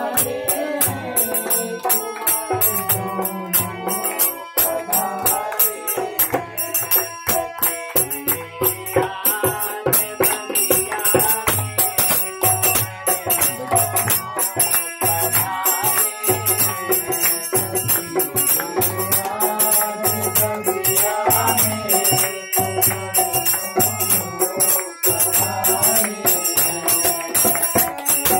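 Devotional bhajan music: a harmonium plays the sustained melody and chords while small hand cymbals (manjira) clash in a fast, steady rhythm and a low drum beats under it, with voices singing.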